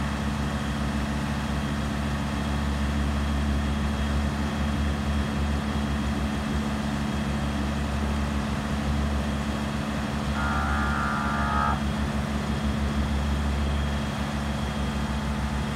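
A vehicle engine idling steadily under a steady hiss of rain falling on floodwater, with a brief steady tone of several pitches about ten seconds in.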